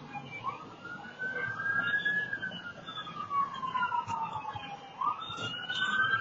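Emergency vehicle siren in wail mode, heard through a doorbell camera's microphone: one slow rise and fall, then rising again about five seconds in.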